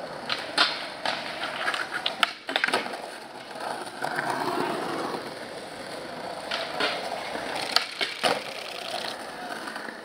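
Skateboard wheels rolling over concrete pavement, broken by several sharp wooden clacks of the board being popped and slapping back down on the ground.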